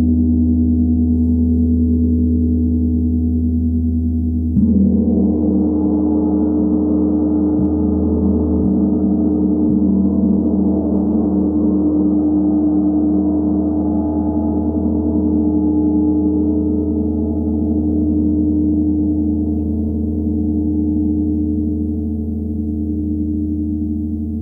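A 90 cm Tibetan gong ringing on from an earlier stroke; about four and a half seconds in it is struck again, and the ring grows brighter and fuller, then slowly fades.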